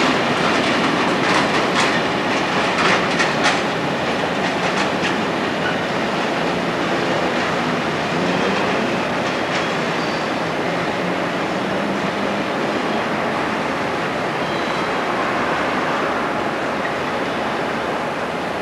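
Freight train of sliding-wall covered wagons and flat wagons rolling by, its wheels clicking sharply over rail joints in the first few seconds. After that it settles into a steady rumble that slowly fades as the wagons move away.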